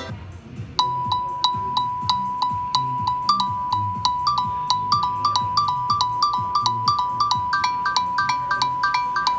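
Google Pixel phone ringtone playing from the phone's speaker. After a short lull a new tune starts: short bright notes repeating about three times a second over one held pitch, with higher notes added as it goes on.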